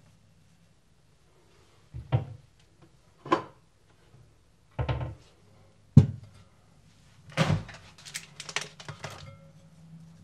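Kitchen counter handling: a series of separate knocks and thunks, the sharpest about six seconds in as a glass bowl is set down on a tea towel on the counter. Near the end comes a denser run of light clicks and knocks as minced meat is spooned from its plastic tray into the bowl with a wooden spoon.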